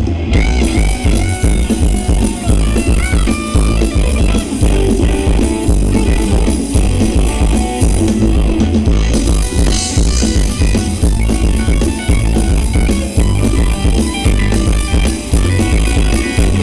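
Loud Thai luk thung dance music from a live band, with a heavy steady bass beat and a melody over it.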